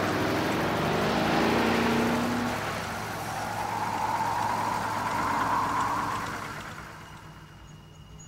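An engine-like mechanical whir over a rushing noise, with a tone that rises slowly in the middle; it fades out about seven seconds in.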